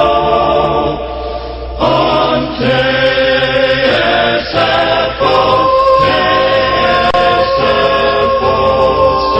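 A choir singing a slow, sustained melody. It settles on one long held chord about five seconds in.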